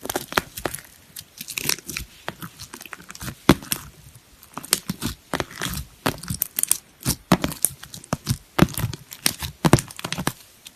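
Slime being squeezed and poked by hand, giving irregular crackling and popping clicks in quick clusters.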